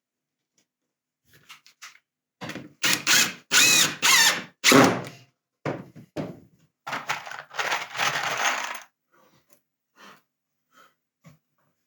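Cordless drill driving screws into wood in a run of short bursts, in two groups about a second apart, with a few light knocks before and after.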